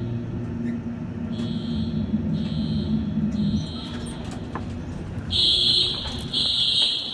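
Simplex fire alarm horns sounding in pulses in groups of three, a high, steady-pitched beep about once a second. The horn is distant at first, and a much louder horn joins about five seconds in. A low rumble sits underneath for the first half.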